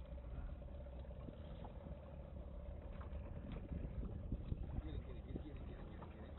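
Fishing boat's engine running steadily, a constant hum under low wind rumble on the microphone, with scattered splashes of water against the hull.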